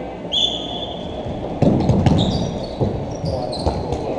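Sneakers thumping and squeaking on a wooden gym floor as dodgeball players sprint from the back wall, the loud footfalls starting about one and a half seconds in. A short, steady high-pitched tone sounds just before the rush.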